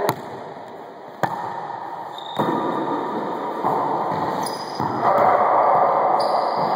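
Rubber wallyball being struck and bouncing off the walls and floor of an enclosed racquetball court: about four sharp smacks that echo off the walls, over the ongoing noise of play, which grows louder near the end.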